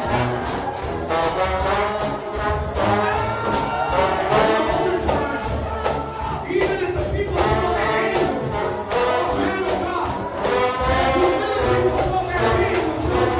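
A United House of Prayer shout band of trombones playing a fast gospel tune, with tambourines keeping a steady beat.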